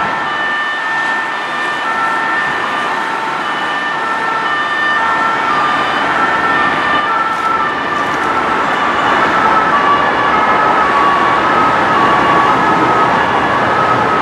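French two-tone police siren on a Police Nationale Renault Master van, alternating between two notes, each held a little under a second, with a steady higher tone beneath them for the first two-thirds. It sounds over the constant rush of dense motorway traffic.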